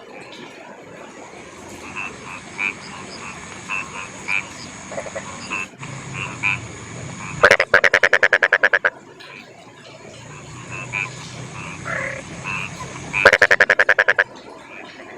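Rice-field frogs calling: two loud, rapid rattling croak trains of about ten pulses a second, each lasting a second or so, with softer scattered short calls between them. Underneath runs an even hiss of rain and a thin steady high tone.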